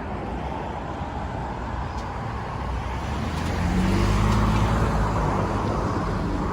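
Road traffic moving, with a vehicle engine growing louder about halfway through as it pulls closer. No horn sounds.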